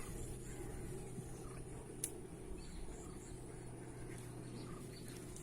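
Quiet background with a steady low hum and a single sharp click about two seconds in.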